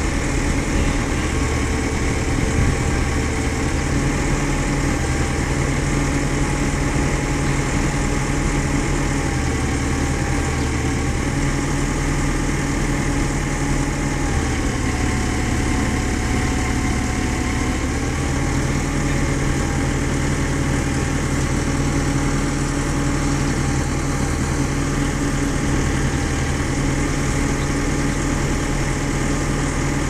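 Cummins B3.3 four-cylinder diesel engine of a backhoe loader running steadily near idle, with its note wavering slightly now and then as the hydraulics move the backhoe arm.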